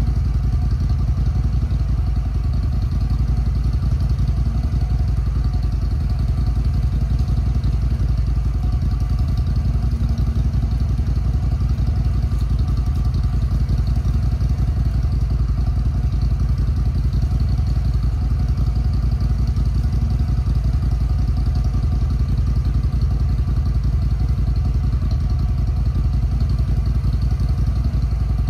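A small Bandit stump grinder's engine idling steadily, left running while the hole is raked out.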